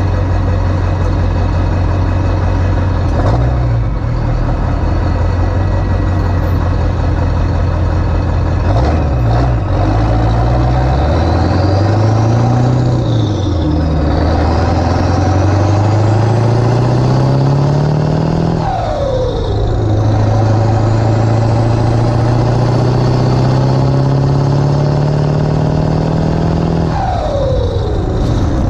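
Ford 7.3 L Powerstroke turbo-diesel V8, on 160/30 injectors, accelerating under load. The engine note climbs in pitch and falls back at each gear change, with a high turbo whistle rising along with it.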